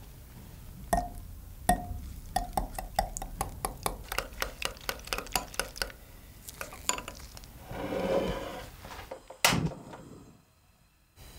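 Wire whisk beating eggs in a glass bowl, its tines clinking against the glass about five times a second. Near the end comes a short rushing sound, then one sharp loud click.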